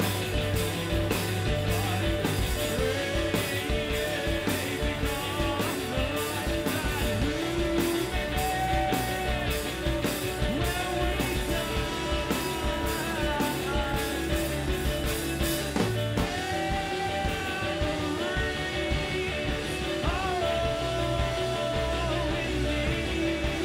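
Live indie math-rock band playing: electric guitar, bass guitar and drum kit, with a sung vocal line. The cymbals drop out about two-thirds of the way through while the guitars and bass carry on.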